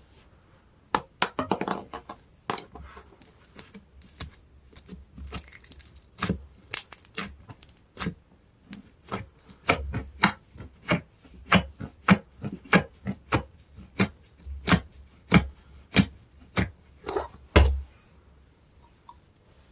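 Slime being squeezed and poked by hand, making sharp clicking pops. A crackly cluster comes about a second in, then a run of regular pops about twice a second that stops a couple of seconds before the end.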